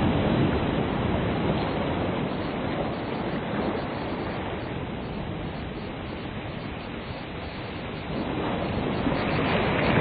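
Ocean surf washing onto a beach: the wash is loud at first, eases off through the middle, then builds again as the next wave breaks near the end.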